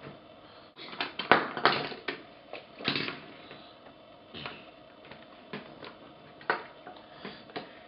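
Hot Wheels die-cast toy car and plastic track clattering. A quick run of clicks and knocks comes in the first few seconds, then scattered single clicks.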